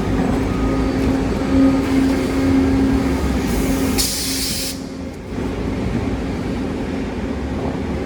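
Hydraulic double wood-shavings baling machine running: a steady mechanical hum and rumble, with a burst of hissing about four seconds in.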